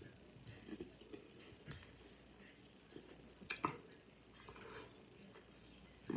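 A person eating, chewing softly with small wet mouth clicks and a couple of sharper clicks about three and a half seconds in.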